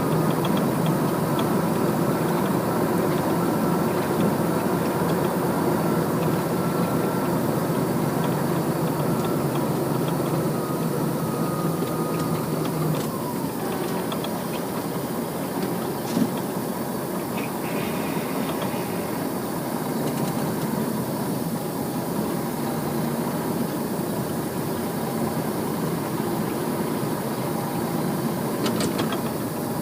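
Heavy machinery running steadily, with a high whine that drops in pitch and fades away about 13 seconds in.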